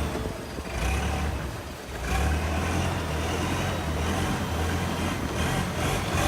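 Tour boat's engine running at a low, steady idle, its hum dipping briefly about a second and a half in.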